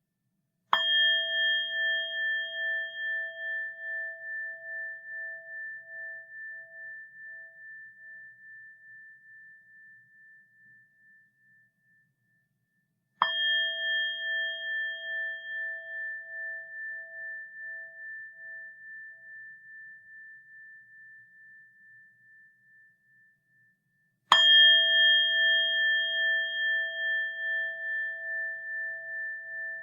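Buddhist rin, a bowl-shaped metal altar bell, struck three times about 12 seconds apart. Each strike rings out in a long, slowly fading tone that pulses in loudness as it dies away.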